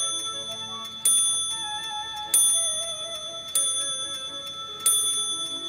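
Louis XVI cartel wall clock with a Vincenti movement striking the hour on its bell: four evenly spaced strikes about 1.3 seconds apart, each ringing on and fading before the next, part of the count of twelve.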